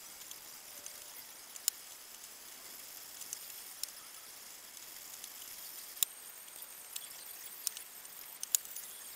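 Hand-stitching of black leather held in a small bench vise: a faint, scratchy hiss as the thread is worked, with a handful of sharp little clicks at irregular intervals.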